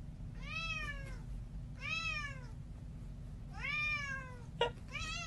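Long-haired domestic cat meowing four times, each meow rising and then falling in pitch and lasting about half a second. A short click comes just before the last meow.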